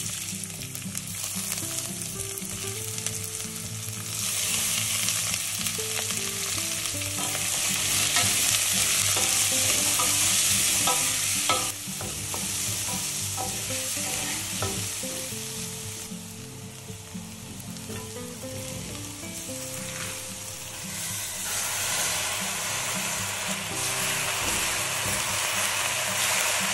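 Chopped garlic and onions sizzling in hot oil in a stainless steel pan, stirred and scraped with a wooden spatula. The sizzle swells a few seconds in, eases off in the middle and builds again near the end.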